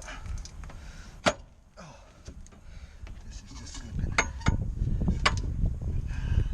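Metal clanks and knocks as a long pry bar is worked against the rear suspension to compress a coil spring: one sharp clank about a second in, then several more clanks around the four- and five-second marks over a low rumbling of straining and shifting.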